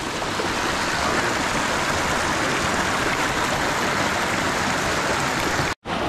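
Water of a volcanically heated river rushing steadily. The sound drops out for a split second near the end.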